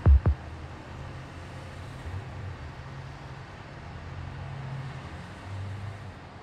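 Two deep bass thumps right at the start, ending an electronic beat, then a low steady rumble of street traffic that fades near the end.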